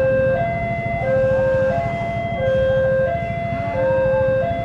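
Railway level crossing warning alarm sounding a two-tone signal, a lower and a higher tone alternating about every three-quarters of a second, over a steady low rumble.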